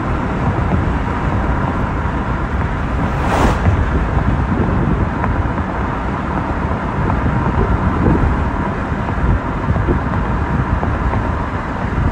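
Steady road and wind noise from a moving car, a low rumble of tyres and air, with one brief rushing whoosh about three seconds in.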